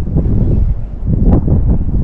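Wind buffeting the microphone: a loud, gusty low rumble, with one short sharp sound a little past the middle.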